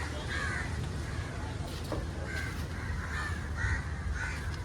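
Crows cawing outside, a string of short caws coming about every half second through the second half, over a steady low background rumble.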